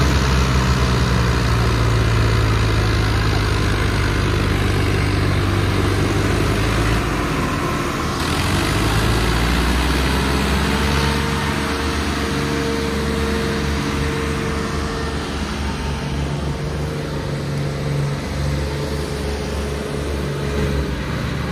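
Diesel tractor engines running under load, hauling a heavily loaded sugarcane trolley that is stuck in the field. The engine note shifts about seven seconds in.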